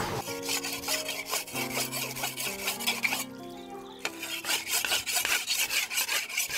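Background music: sustained chords that change step by step about once a second over a fast, even ticking beat.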